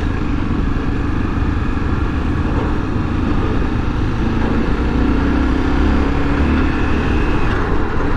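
Honda XRE300's single-cylinder four-stroke engine running at low speed in traffic, mixed with road noise, getting slightly louder about halfway through.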